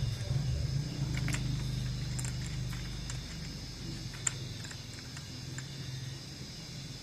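Model train locomotive running along the track with a low engine hum that fades after about three seconds, and scattered small clicks from the wheels and track.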